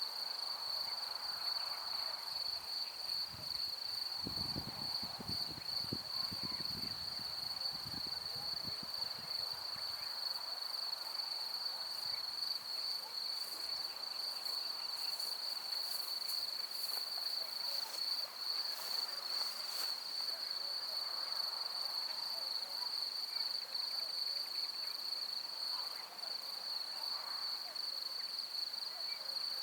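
Crickets singing in a steady, continuous high-pitched chorus. A low rumble comes in about four seconds in and fades a few seconds later.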